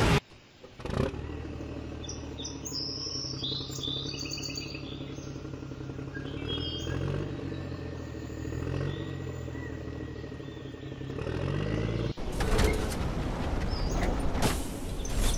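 A steady, low engine-like drone with short high chirps over it, like birds, early on. About twelve seconds in it gives way to a louder, rougher rushing noise.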